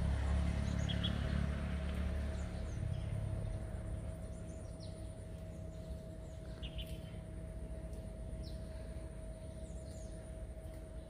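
Outdoor ambience with scattered short bird chirps and a faint steady hum. A low rumble fades out over the first two to three seconds.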